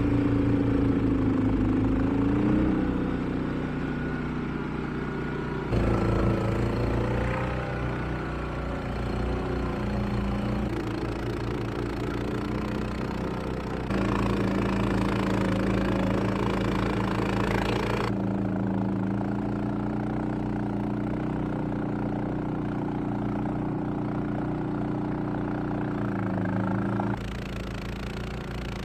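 Honda HSM1390i hybrid snowblower's iGX390 389 cc single-cylinder engine running steadily. Its pitch and loudness jump abruptly a few times.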